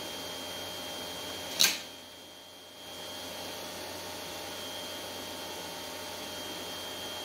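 One sharp click about a second and a half in, over a steady electrical hum with a faint high-pitched whine.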